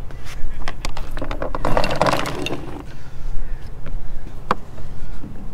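Hand tools working on fittings on a boat's cabin roof while an old antenna is removed: a dense run of clicking and scraping about a second and a half in, with a few sharp single clicks around it.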